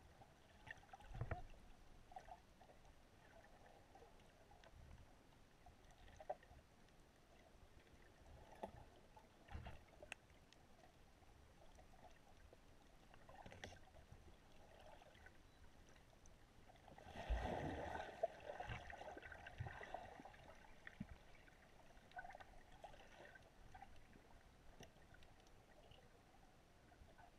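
Faint underwater ambience heard through a camera's waterproof housing, with a few soft knocks and one burst of bubbling about two-thirds of the way through, like a diver's exhaled breath.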